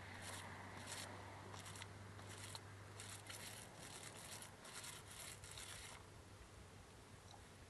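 Small foam paint roller rolled back and forth over wooden slats, a faint swishing rasp in repeated strokes about one or two a second, stopping about six seconds in.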